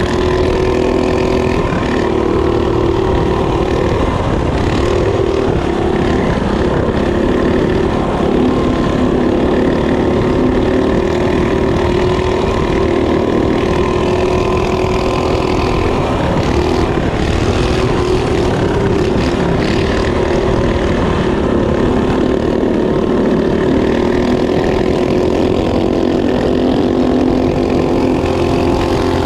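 Mini bike's small single-cylinder four-stroke engine running hard at high revs, its note steady with small rises and dips as the throttle is worked.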